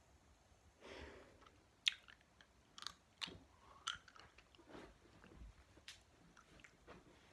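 Quiet chewing and lip smacks close to the microphone: several sharp, separate clicks spread out, the loudest about two seconds in.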